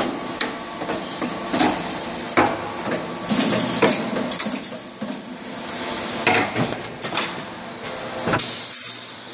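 Automated headrest-rod transfer line running: pneumatic grippers and slides clack shut in sharp knocks every second or so, over a steady machine hum, with a burst of compressed-air hiss in the middle.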